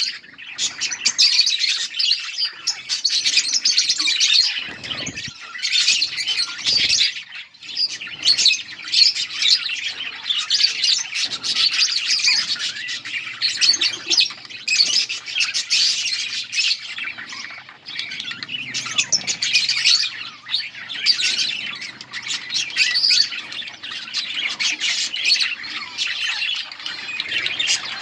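A flock of budgerigars chirping and chattering continuously, many high warbling calls overlapping, with a few soft low thumps.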